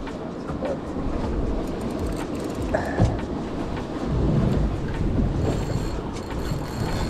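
Wind buffeting the microphone: an uneven low rumble that swells about four seconds in.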